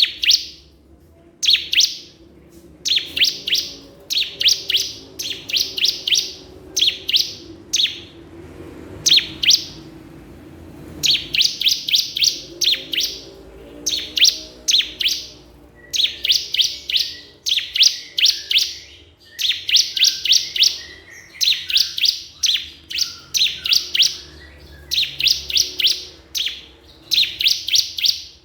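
Bar-winged prinia (ciblek kristal) singing vigorously: phrases of rapid high chirps, each under a second long, repeated again and again with short pauses. This is the loud challenge song that calls out rival prinias.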